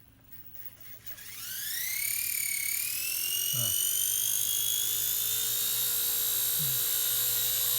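WLtoys K110 micro RC helicopter's motor spinning up about a second in, its whine rising in pitch and then holding steady at speed.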